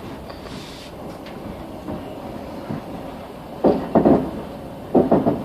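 Passenger train running on the rails: a steady rumble, with two clusters of loud clacks in the second half as the wheels pass over rail joints.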